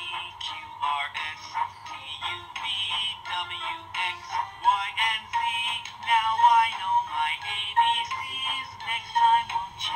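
Fisher-Price Thomas & Friends ABC Train toy playing a sung song through its small built-in speaker, with little bass.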